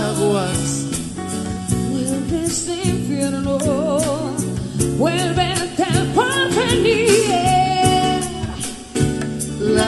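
Live band playing a slow pop song: male and female voices singing together over bass, electric guitar and drums keeping a steady beat.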